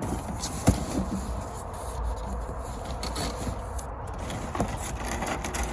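Handling noises from a heater kit being unpacked: scraping and rubbing with a couple of sharp knocks, over a steady low rumble.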